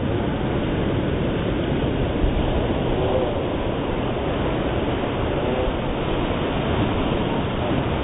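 Black skimmer calls slowed down: two faint, low, drawn-out calls, about three seconds in and again after five seconds, over a steady rushing noise.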